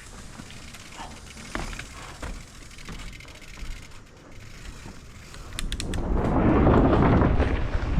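Mountain bike rolling with light clicks and rattles from the bike, then from about six seconds a loud, steady rumble of tyres on the dirt trail and wind on the camera microphone as it picks up speed.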